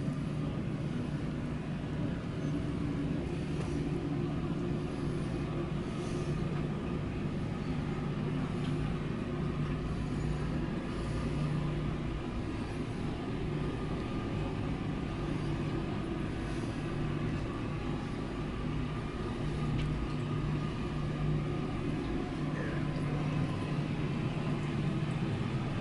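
A steady low hum with a faint rumble under it, unchanging throughout.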